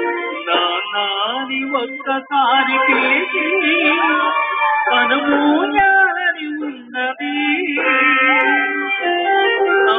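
Loud music with a wavering, gliding melody line, most likely singing, heavily compressed by the recording.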